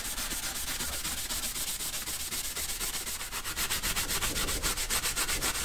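Abrasive sanding on bare metal, a gritty rubbing with a rapid, even rhythm, used to smooth the unpainted surface of an old milling machine part.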